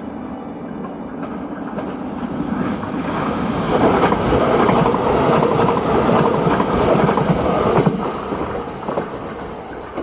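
E233-series electric commuter train passing close by on the track, its rumble building over the first few seconds, loudest in the middle and fading away near the end.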